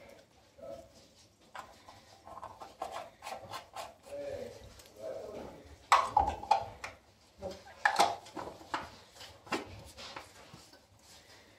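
Black plastic parts of a small hand-operated espresso maker being handled and screwed together: a run of clicks, taps and scraping of threads, with louder knocks about six and eight seconds in.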